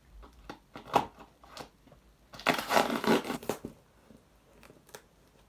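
Cardboard parcel packaging being handled and torn open by hand: a few taps and scrapes, then a loud tearing rip about two and a half seconds in that lasts about a second.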